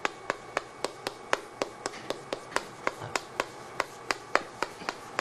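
Chalk tapping against a chalkboard as Korean characters are written stroke by stroke: a steady run of short, sharp taps, about four a second.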